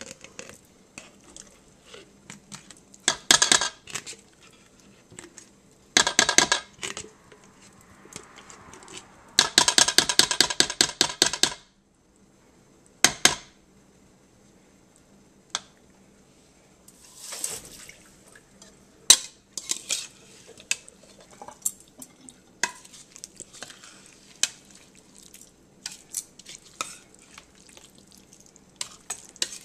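A metal spoon clinking and scraping against a mayonnaise jar and a mixing bowl in several quick runs, the longest about two seconds, as mayonnaise is scooped out. This is followed by lighter, scattered clinks as the potato salad is stirred in the bowl.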